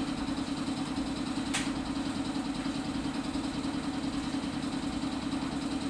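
Steady machine hum, like an engine idling, with a single sharp click about one and a half seconds in.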